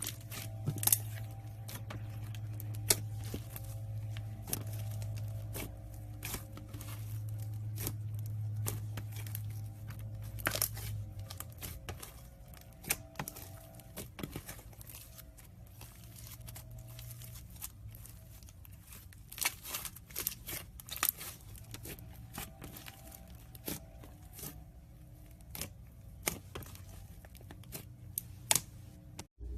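Slime being handled and stretched, with irregular sticky clicks, crackles and tearing sounds over a steady low hum.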